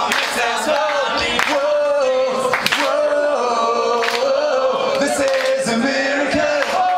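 Many voices singing a melody together in long held notes, like a choir, with a few sharp hits scattered through.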